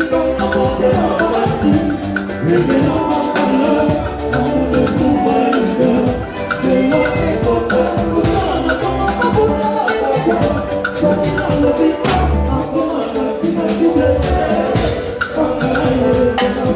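Live Congolese rumba band playing with singers into microphones, a steady dance beat and a shaker.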